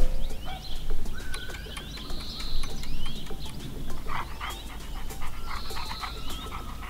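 Birds chirping over a steady outdoor ambience, with a dog panting.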